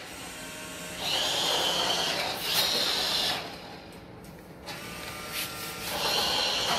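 Toy remote-control car's small electric drive motor whining as it drives. The whine starts about a second in, drops away near the middle, and comes back near the end.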